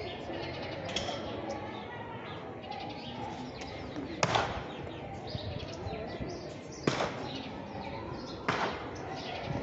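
Outdoor background of a murmuring crowd and chirping birds, broken by three sharp slaps: one a little under halfway, one about two-thirds through, and one near the end.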